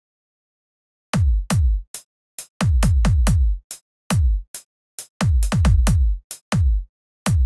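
Electronic kick drum sample triggered over and over at uneven intervals, as notes are auditioned in a piano roll. Each hit is a short thump whose pitch drops quickly to a deep low end, and some come in quick runs. The hits begin about a second in.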